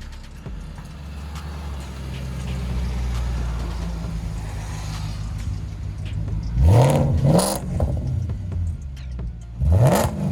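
Audi S4's V8 engine running with a steady low note, then revved hard twice, about six and a half seconds in and again near the end, the pitch sweeping sharply up and back down each time.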